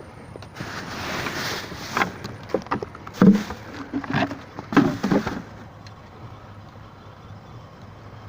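Scrap and debris being handled in a construction skip bin: about a second of rustling, then several sharp knocks and clatters over the next few seconds.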